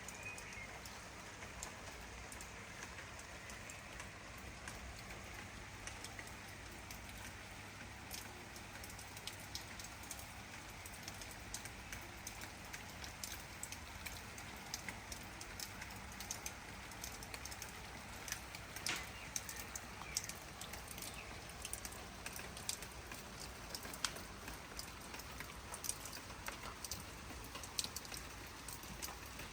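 Steady rain, with individual drops landing close by as sharp ticks over the hiss of the downpour. The ticks come more often in the second half.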